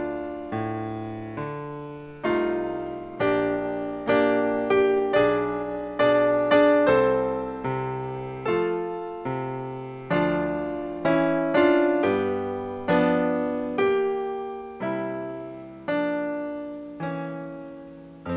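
Solo piano music, chords and a melody with each note struck and fading away.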